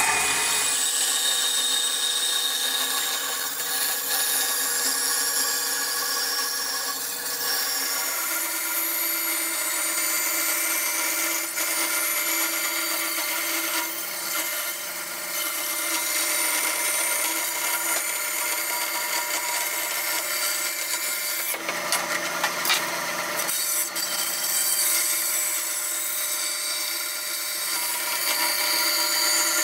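Bandsaw ripping a wooden board lengthwise, the blade cutting steadily through the wood over the running motor.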